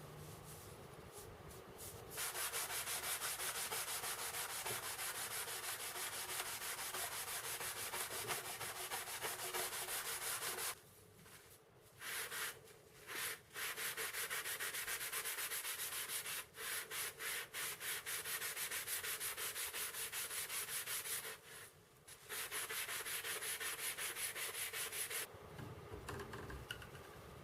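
Sandpaper rubbing steadily on a knife to strip it down for restoration, paused briefly a few times midway.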